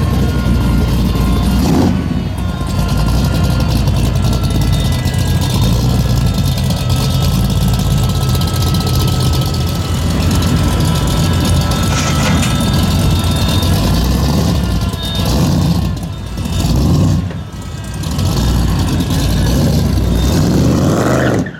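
A muscle car's V8 engine running loudly and steadily, its level swelling and dipping a few times near the end.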